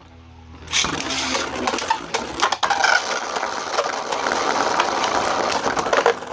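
3D-printed Beyblade spinning tops battling in a plastic stadium: about a second in they hit the floor and clash, giving a steady, dense rattle of rapid small clicks and scrapes as they spin against each other.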